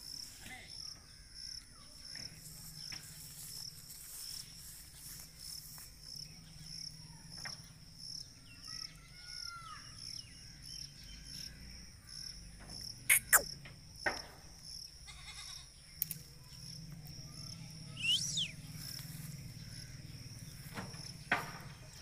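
Insects trilling steadily in a high, pulsing chorus. A little past halfway come a few loud sharp clicks, and later a short high call.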